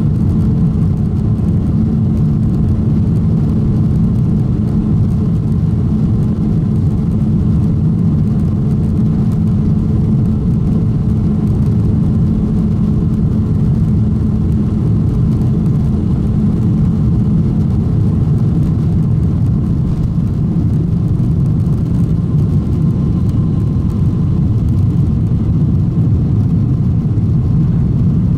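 Boeing 747-400 heard from the economy cabin beside the wing during its takeoff run and lift-off: four General Electric CF6-80C2 turbofans at takeoff thrust, a loud, steady low roar.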